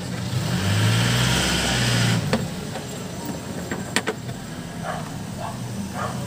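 A motor vehicle's engine passing close by on the street for about two seconds, then lower traffic noise. Two sharp knocks come as the speaker cabinet's grille is handled.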